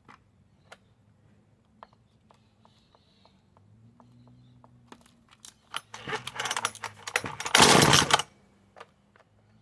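Husqvarna 236 two-stroke chainsaw being pull-started: a few light clicks as it is handled, then the starter cord yanked twice, about six and seven and a half seconds in, the second pull the loudest.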